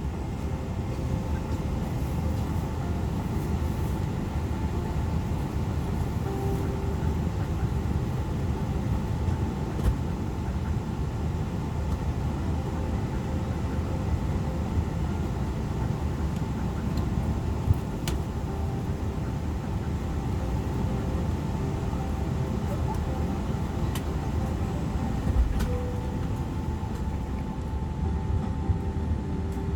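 Steady low rumble of an airliner cabin's ventilation and air-conditioning hum inside a Boeing 777-300ER waiting to push back, with faint steady hum tones and a few scattered light clicks.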